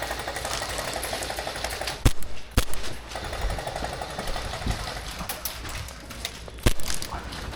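Airsoft guns firing long full-auto bursts, a fast even rattle, in two runs with a short gap between them. Three sharp cracks stand out: two in the gap, about half a second apart, and one near the end.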